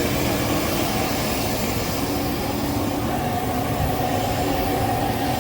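Steady cabin noise of a private jet: a constant rumble and hiss with two faint, steady hums running under it.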